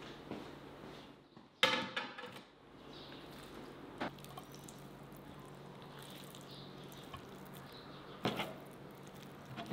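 A ceramic plate set down on a metal tray with a sharp, ringing clatter about one and a half seconds in, then soft wet sounds and a few light knocks as raw chicken strips are laid onto it by hand.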